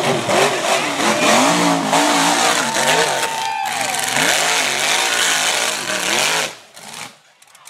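Rock bouncer buggy's engine revving hard and repeatedly, its pitch surging up and down as it claws up a steep dirt hill. The sound drops away sharply near the end.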